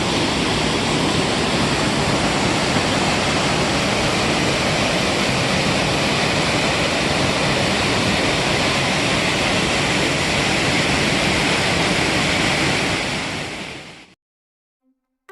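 Waterfall on Seneca Creek pouring steadily: a loud, even rushing of falling water, which fades out over about a second and a half near the end.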